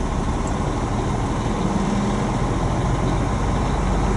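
Semi-truck diesel engine idling, a steady low rumble heard from inside the cab.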